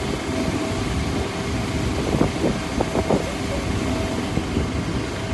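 Steady engine rumble with a constant whine over wind noise on the microphone. Faint distant shouts come about two to three seconds in.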